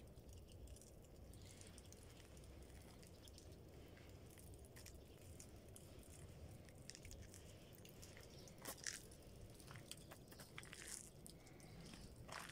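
Near silence with a faint low rumble. In the second half come a few soft crunching footsteps on icy, crusted snow.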